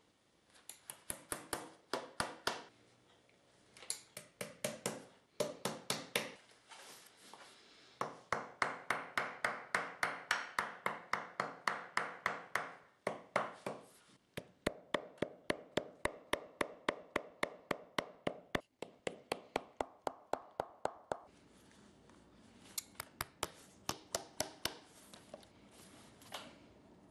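Shoemaker's hammer tapping rapidly on a leather upper stretched over a shoe last, about three to four blows a second in long runs with short pauses, and lighter taps near the end.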